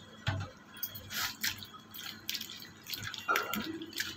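A hand swishing thin raw potato slices around in water in a steel kadai, rinsing them clean: irregular splashes and drips.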